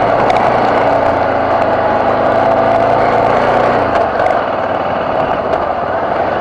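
BMW F650GS motorcycle engine running steadily, its low note dropping away about four seconds in, with a few sharp ticks over it.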